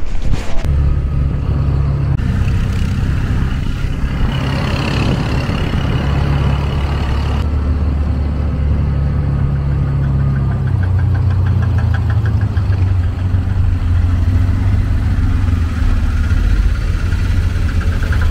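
Auto rickshaw engine running as it drives, heard from inside the cab. There are a few knocks at the very start, and the engine note steps down slightly about ten seconds in.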